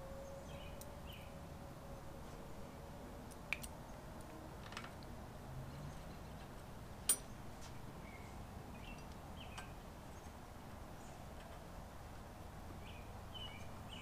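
A few light clicks and taps of small metal parts, screws and a tool being handled, the loudest about seven seconds in, over faint short bird chirps that come in pairs.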